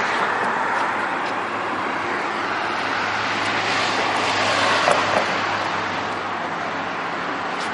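Road traffic on a town street: a vehicle passing, growing louder toward the middle, over a steady low hum.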